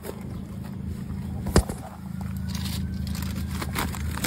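Footsteps crunching on gravel and grass, with a sharp click about a second and a half in and a steady low hum underneath.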